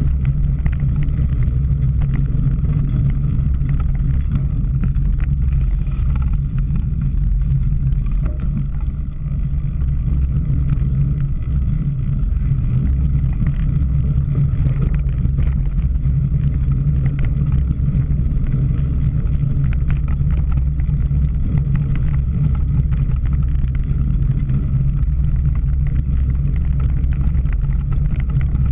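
Steady low rumble of wind and riding noise on a bike-mounted action camera's microphone during a cyclocross race.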